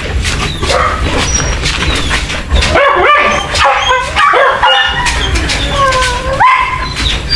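Dogs whining and yelping, with a run of short cries that rise and fall in pitch, coming thick and fast from about three seconds in.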